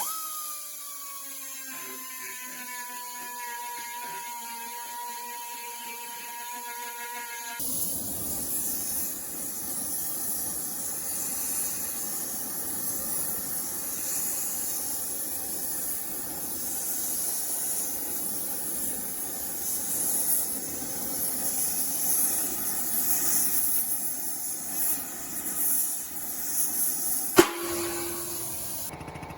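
A power tool whining at a steady pitch that sags slightly, then a loud steady hissing rush that swells and ebbs and stops with a sharp click near the end.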